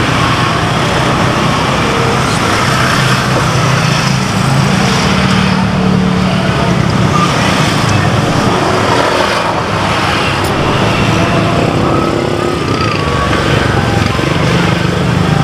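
Steady road traffic noise from passing vehicles, with a low engine hum that swells about five seconds in and again near the end.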